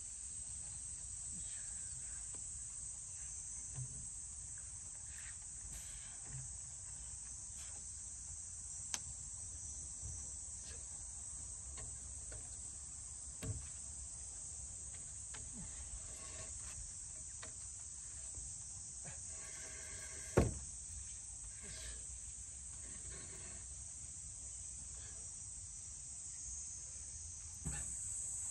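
Insects chirring in a steady, high-pitched drone over a low rumble, with a few scattered knocks and thumps; the loudest knock comes about two-thirds of the way through.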